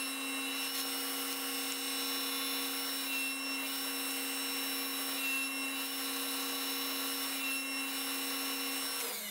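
Table saw running at a steady pitch while the sides of a small wooden hexagon are cut on a sled. Near the end the saw is switched off and its pitch falls as the blade winds down.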